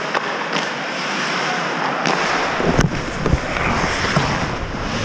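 Ice hockey play on the rink: a steady hiss of skate blades scraping the ice, with a few sharp stick-and-puck clacks a little past halfway.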